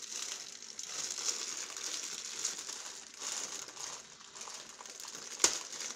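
Clear plastic packaging bag crinkling and rustling as it is handled and worked open. There is one sharp click near the end.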